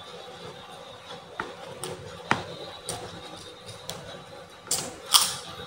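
Close-up mukbang eating sounds: someone eating rice by hand, with a few sharp mouth clicks and smacks, then two louder noisy smacking bursts near the end.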